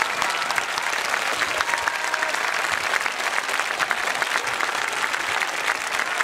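Large crowd of spectators applauding steadily.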